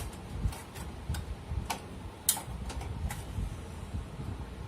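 CPU cooler being fastened down onto the motherboard: a string of irregular sharp clicks and small knocks, roughly one every half second, over low handling noise.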